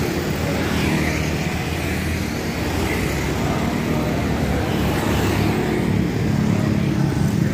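Motor scooters riding past, their small engines running over steady street traffic noise.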